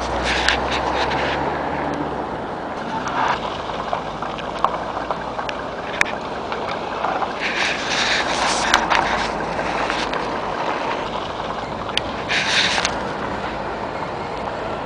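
Traffic noise from a snowy city street: a steady hiss of passing cars, with a few louder swells as vehicles go by and scattered small clicks.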